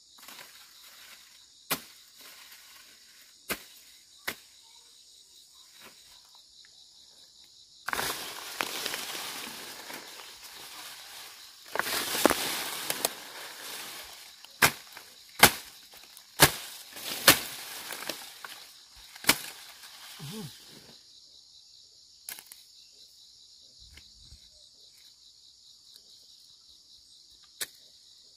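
Machete swings slashing through thick weeds: sharp swishing strikes, a few apart at first, then a busy stretch of rustling, tearing vegetation with several hard cuts in the middle. Insects buzz steadily in the background.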